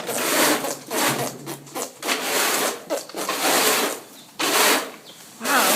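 A mare flapping and blowing through her lips, making fart-like lip noises in about six bursts, roughly one a second.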